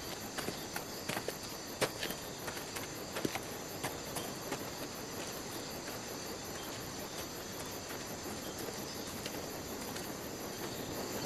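Night ambience of crickets chirping steadily, with a few light ticks scattered through the first few seconds.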